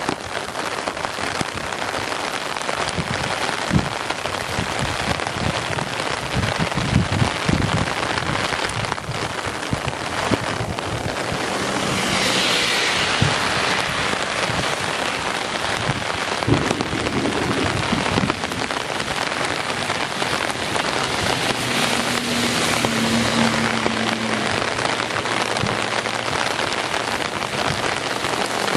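Torrential rain pouring down in a steady, loud hiss, heavier for a couple of seconds near the middle. Strong wind gusts knock low thumps into the microphone now and then.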